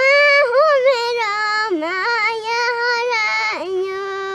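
A young girl singing a Nepali song alone, without accompaniment, in a high voice with long held, wavering notes; a steady held note closes the phrase near the end.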